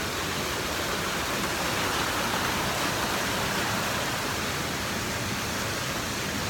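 Steady rush of flowing stream water, an even noise with no breaks.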